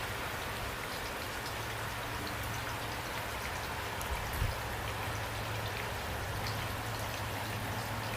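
Steady rain falling, a dense even hiss with individual drops ticking through it and a couple of slightly louder drop hits about halfway through.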